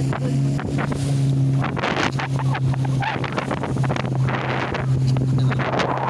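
Engine of a small outrigger boat running with a steady drone while under way at sea, with wind buffeting the microphone and water splashing at the hull.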